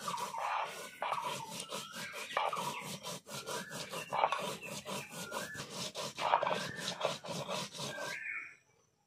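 Spices being ground wet on a Bengali shil-nora, a pitted stone slab, by a stone roller: quick rhythmic stone-on-stone scraping and rolling strokes, a few each second. Some higher-pitched rising and falling tones come through now and then, and the grinding stops shortly before the end.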